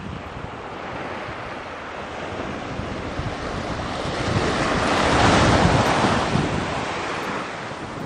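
Wind on the microphone over waves at the shoreline, a steady rush that swells louder about five seconds in and then eases off.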